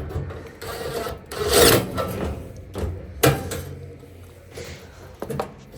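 Handling noise from work on a clothes dryer's internal parts: irregular scraping and rubbing, loudest about one and a half seconds in, with a sharp knock a little over three seconds in.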